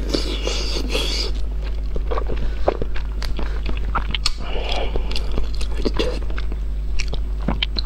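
Close-miked chewing of soft, wet food: many sharp mouth clicks and smacks, with breathy puffs about a second in and again around five seconds in, over a steady low hum.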